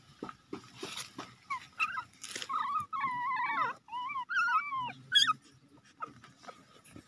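Newborn puppies whimpering: a run of short, wavering, high squeaks through the middle few seconds, with a few faint clicks around them.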